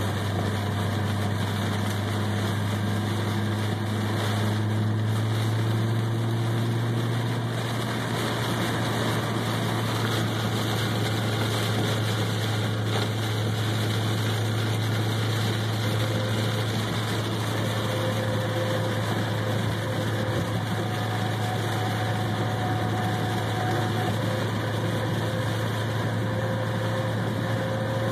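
Inside a car driving through heavy rain: a steady low drone of engine and road noise under an even hiss of rain and spray from the wet road.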